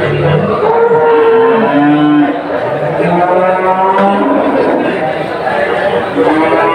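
Cattle mooing, several long calls at different pitches overlapping one another, with a lull a little past the middle before more calls.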